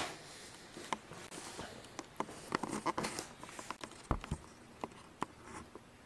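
Jeweler's saw cutting a mother-of-pearl blank held in a bench vise: short, uneven rasping strokes. In the second half come a few scattered clicks and a low knock.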